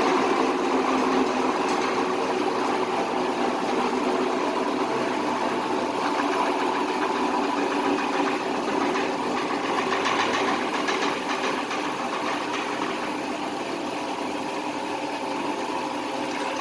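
Hofmann GTE 2500 spindle car lift running under its electric motor, a steady mechanical hum with a rattling from the lifting spindle. The spindle clattering in the middle of the lift range is what the owner suspects comes from defective rollers.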